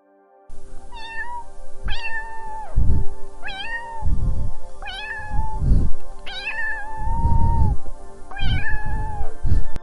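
Domestic cat meowing repeatedly, about six drawn-out meows, each dipping in pitch at its start and then held, with bursts of low rumble between the calls. A steady music bed plays underneath.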